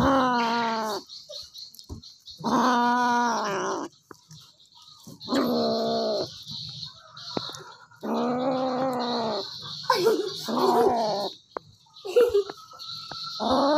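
Kitten growling over a piece of raw chicken while it eats, a food-guarding growl. It comes as a series of drawn-out growls of about a second each, each dropping in pitch as it ends.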